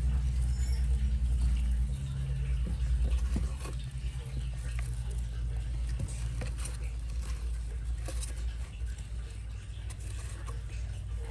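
Baby Brazilian short-tailed opossums scurrying in wood-shaving bedding and over a wooden hide and cardboard tubes: scattered light scratches, taps and rustles. A low steady hum underlies them, strong for the first three and a half seconds and fainter after.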